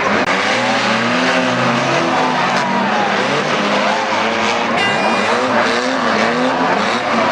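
Several unlimited banger race cars' engines revving together, their pitches rising and falling as they accelerate and ease off.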